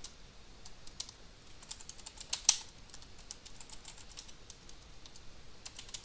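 Typing on a computer keyboard: an irregular string of key clicks, with one louder keystroke about two and a half seconds in.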